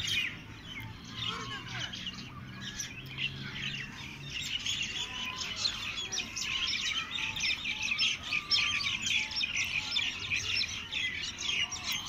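Dense chorus of many small birds chirping over one another in an aviary, growing thicker and louder about five seconds in.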